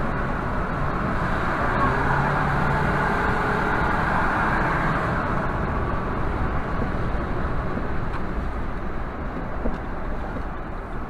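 Steady road noise heard from inside a car driving at about 50 mph on a wet road: tyre hiss and engine drone, easing slightly near the end as the car slows.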